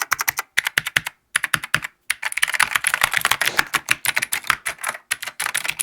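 Typing on a freshly built GMK87 mechanical keyboard: quick keystroke clicks in short bursts, then a fast, dense run of typing in the middle before it stops near the end.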